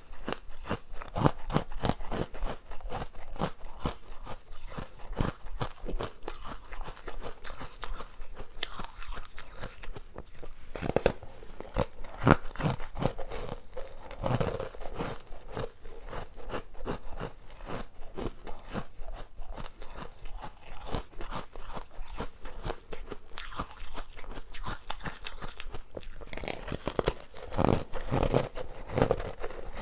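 Frozen basil seed ice being bitten and chewed close to the microphone: a steady, irregular run of sharp cracks and crunches, with some bites louder than others.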